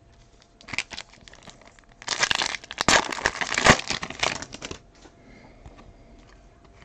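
Foil wrapper of a Topps Chrome trading-card pack being torn open and crinkled by hand. There is a short rustle about a second in, then a louder crackling tear and crumple for about three seconds in the middle.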